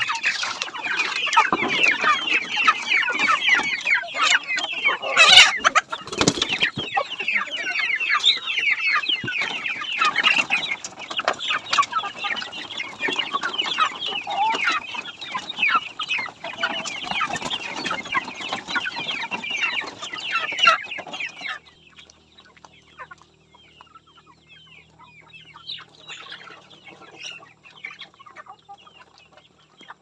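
A crowded cage of young white chickens peeping and cheeping nonstop in dense, high chirps. There is a brief loud sharp sound about five seconds in. About twenty-one seconds in the chorus cuts off abruptly, leaving only faint scattered calls.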